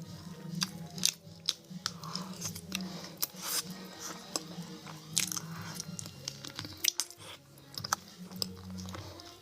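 Close-up chewing and biting of food, with many sharp, irregular crunches.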